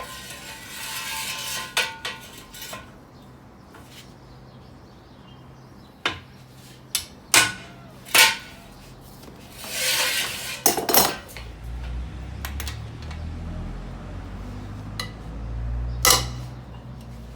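Lug wrench and socket clanking on the wheel's lug nuts while they are loosened: a scattered series of sharp metal clinks and knocks, some ringing briefly. A low rumble runs underneath in the later part.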